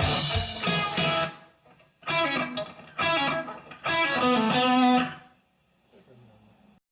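Rock music with electric guitar: the full sound breaks off about a second in, then three ringing electric guitar chords are struck about a second apart and die away.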